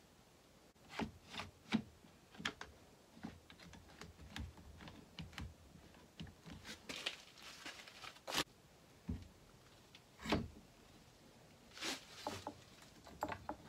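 Irregular clicks and light knocks of clamps being fitted to a glued wooden graft: a plastic trigger-action bar clamp ratcheted tight, then a long steel bar clamp set in place along the work.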